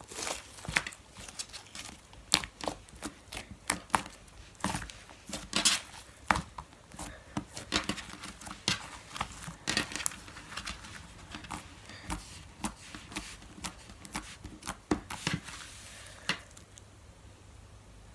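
Pink slime being stretched, squeezed and folded by hand, giving irregular wet clicks, pops and crackles. The handling stops about a second and a half before the end.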